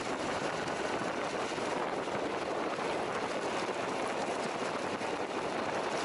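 Car driving on a gravel road, heard from a camera mounted low on its side by the wheel: a steady rush of tyre noise on gravel mixed with wind.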